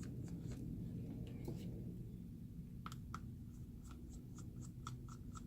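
Small screws being turned out of a phone's frame with a precision screwdriver: faint light clicks, a few near the start and then a quick run of ticks, about four or five a second, in the second half.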